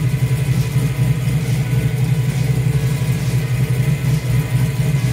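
Car engine idling at operating temperature, heard close up from underneath the car beside the exhaust pipe; a steady, low running sound.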